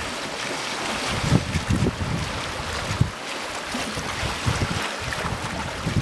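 Sea water washing and sloshing among shoreline boulders, with gusts of wind buffeting the microphone in irregular low thumps.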